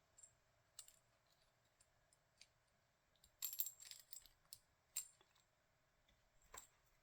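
Faint, scattered light clicks and small metallic taps from handling the e-bike battery's charging connector parts, with a short cluster of clicks about three and a half seconds in.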